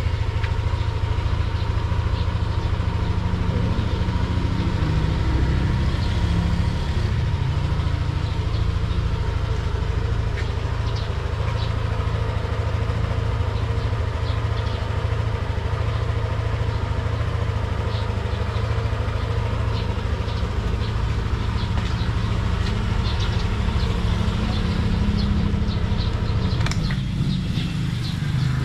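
Yamaha Aerox 155 scooter's 155cc liquid-cooled, fuel-injected single-cylinder engine idling steadily, with a few light clicks over it.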